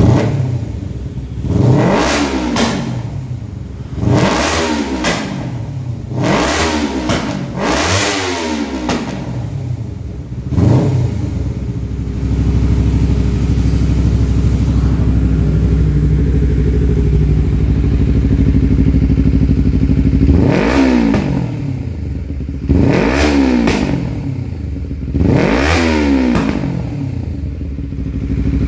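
Honda CBR250RR parallel-twin engine running through an Arrow Thunder Competition titanium full exhaust system, idling and blipped by the throttle. There are five quick revs in the first ten seconds or so, then a steady idle, then three more revs near the end.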